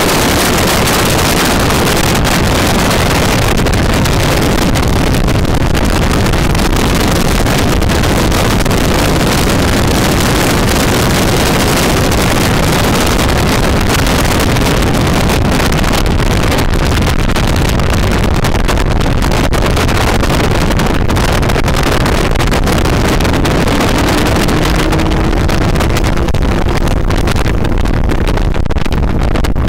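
Sport motorcycle at track speed: loud wind rushing over the microphone, with the engine's note faintly underneath and rising in pitch about 25 seconds in.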